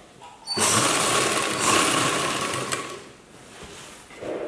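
Black straight-stitch sewing machine running, sewing a seam along a folded cloth edge: it starts about half a second in, runs steadily for about two and a half seconds, then slows and dies away.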